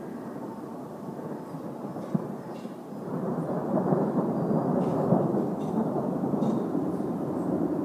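Thunder rumbling, swelling much louder about three seconds in and rolling on steadily.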